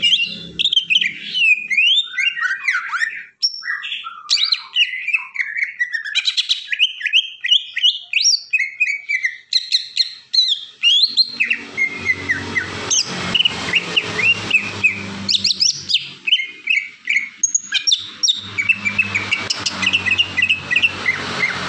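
Male green leafbird (cucak ijo) singing in agitated, full song: a fast, varied run of sharp chirps and short whistled notes, thinning out briefly twice.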